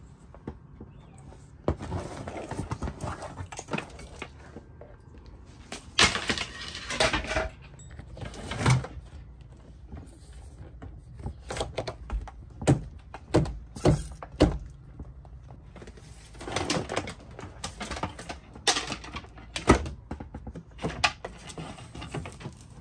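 Handling noise from boat wiring work: irregular knocks, clicks and thuds with patches of rustling as electrical wires are handled and pulled, and carpet is lifted over a wooden compartment.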